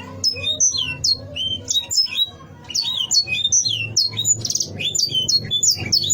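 Canary singing a fast run of short whistled notes, each sliding down in pitch, repeated two to three times a second, with a brief rapid trill about four seconds in.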